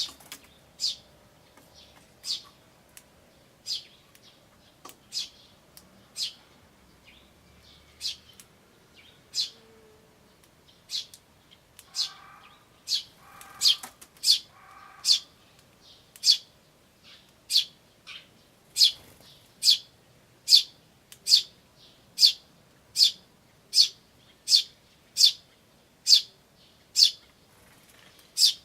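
Eurasian tree sparrows calling: a steady series of short, high chirps, at first about one every second and a half, then more than one a second from about halfway through. A few lower, harsher chattering notes come around the middle.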